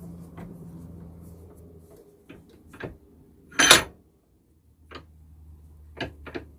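Objects being handled: several small clicks and knocks, and one sharp, loud clack about three and a half seconds in, over a low hum that stops about two seconds in and comes back about five seconds in.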